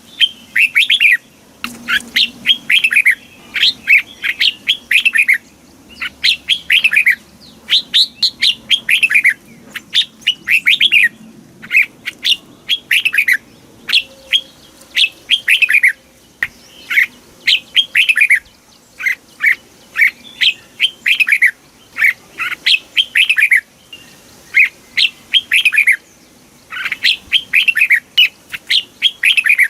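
Red-whiskered bulbul singing: loud, short phrases of quick whistled notes that sweep downward, repeated about once a second with brief pauses between them.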